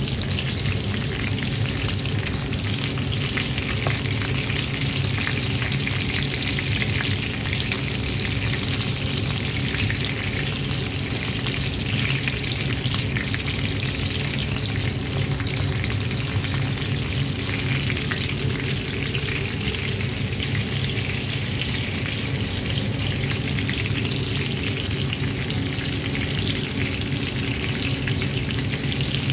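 Chicken nuggets and breaded chicken strips shallow-frying in olive oil in a nonstick pan, giving a steady crackling sizzle over a low hum. A wooden spatula stirs and turns the pieces partway through.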